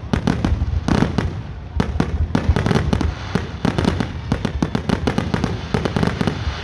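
Fireworks display in a rapid, continuous barrage: many aerial shell bursts going off several times a second, overlapping booms and sharp cracks with no pause between them.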